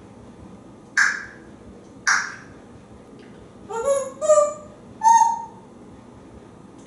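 African grey parrot vocalising. Two short, breathy, hiss-like bursts come about a second apart, then a quick run of short pitched notes rising in pitch, ending on one short higher call.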